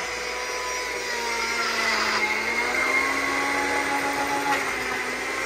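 Personal bullet-style blender running steadily as it purées fresh thyme, hot pepper, onion and tomato into green seasoning. Its motor hum rises a little in pitch about halfway through.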